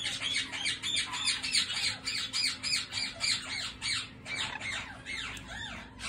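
Parrot calls: a rapid run of short squawks, about four or five a second, loudest in the first few seconds and fading toward the end.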